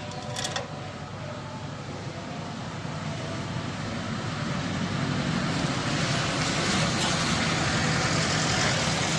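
Steady engine-like rumble and noise that grows gradually louder, like a motor vehicle approaching. A brief sharp crackle comes about half a second in.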